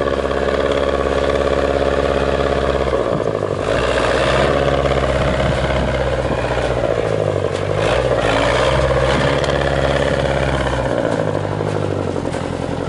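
GAZ-66 army truck's engine running under load as the truck ploughs and climbs through deep snow. The engine note changes about three seconds in and again near the end, with rougher, clattering stretches in between.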